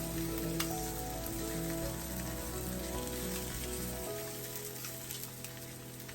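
Slices of Spam sizzling in a frying pan, a steady crackle, under background music of held notes whose bass drops out about two-thirds of the way through.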